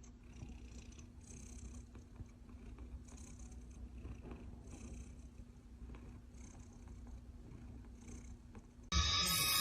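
A domestic cat purring steadily close to the microphone, with a soft hiss at each breath about every second and a half. About nine seconds in, much louder music cuts in abruptly.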